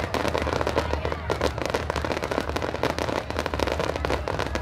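Fireworks going off in a rapid, continuous string of crackling pops, with no break between them.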